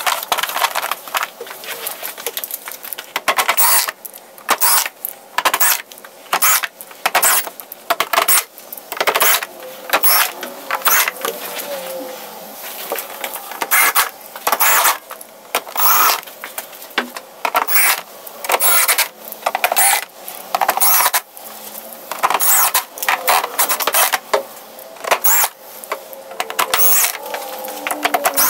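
Irregular sharp clicks and clatters of hands handling the hard plastic bottom case of a Yamaha MOXF8 keyboard as it is lined up for screwing back together.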